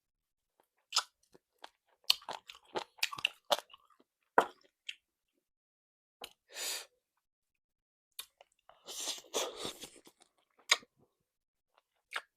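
Close-miked chewing and crunching of salt-baked chicken, meat that is both chewy and crisp. A quick run of sharp crunches comes in the first few seconds, then sparser, softer chewing sounds.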